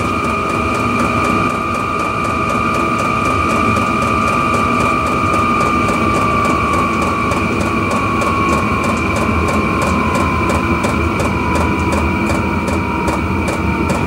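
Vevor all-in-one diesel heater running, its blower whine falling slowly in pitch as the heater is turned down from 4 Hz toward 2 Hz pump rate. Under it, a steady rumble and a fast, even ticking from the fuel dosing pump.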